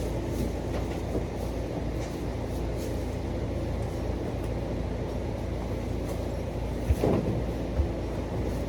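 A steady low mechanical rumble with faint humming tones, and two sharp knocks about seven and eight seconds in.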